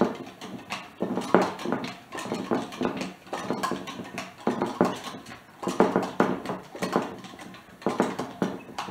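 Glass-jar dasher butter churn worked by hand: the plunger splashes up and down through the cream in quick, uneven runs of strokes. The cream is still thin and runny, not yet come to butter.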